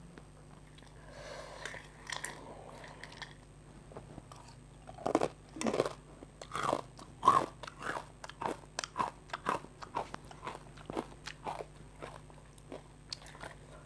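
Close-up crunching and chewing of crisp fried basreng (meatball chips): many quick, irregular crunches that start about five seconds in and keep going.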